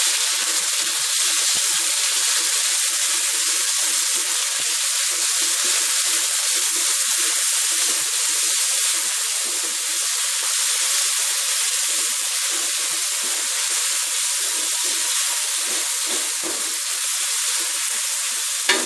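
Sliced pork and chopped garlic frying in hot oil in a wok: a steady sizzling hiss, with one sharp knock near the end.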